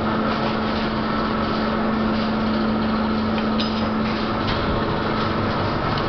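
Fishing boat's engine running steadily with a constant low hum, with a few light knocks over it.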